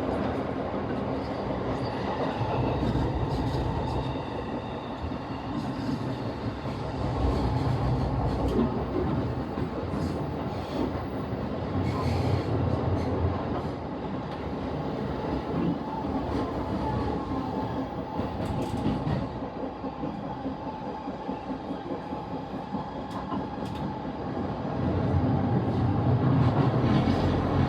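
Running noise of a JR E233-series commuter electric train heard from inside a passenger car as it nears a station: a steady rumble of wheels on rail with scattered clacks over rail joints and points, swelling louder near the end.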